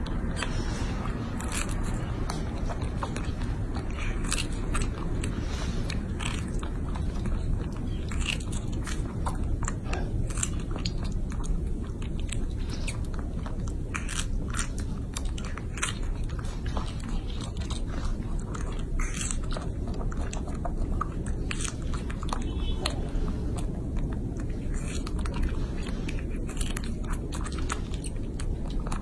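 Baby macaque biting and chewing strawberries: a run of short, sharp mouth clicks and smacks over a steady low background noise.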